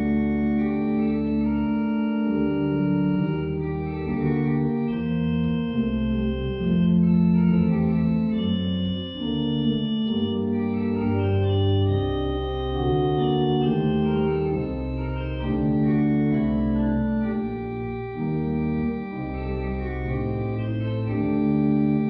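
Church pipe organ playing a continuous passage of held chords, with the bass notes moving on about every second.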